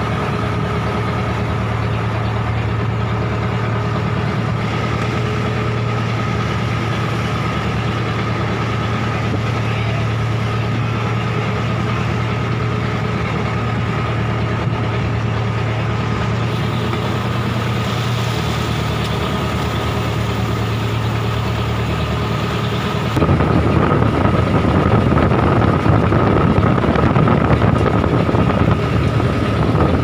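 A small wooden fishing boat's inboard engine running steadily under way, with wind and waves against the hull. About two-thirds of the way through the sound jumps louder and rougher, with water splashing at the bow.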